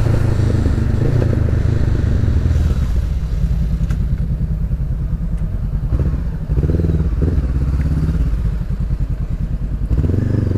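Honda CB 500F's parallel-twin engine running through an aftermarket Jeskap exhaust, catalytic converter still fitted, as the motorcycle rides along. The engine note is steady, dips briefly about six and a half seconds in, then picks up again.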